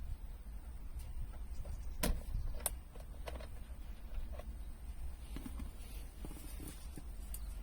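A few scattered sharp clicks and light knocks, the two loudest about two seconds in, over a low steady rumble.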